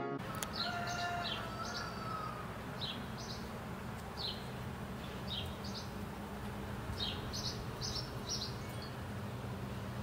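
Outdoor birds chirping: short, high chirps repeated every second or so, with a few held whistled notes in the first couple of seconds. A steady low hum runs underneath.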